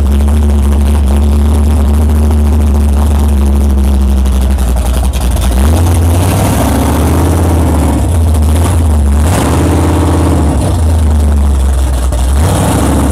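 Chrysler 440 big-block V8 in a 1989 Dodge D150 drag truck idling steadily, then revved in a series of throttle blips from a little under halfway in.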